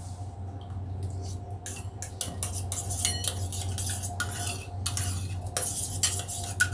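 Metal spoon stirring thick sauce in a small steel bowl, clinking and scraping against the bowl in quick irregular strokes that start about two seconds in.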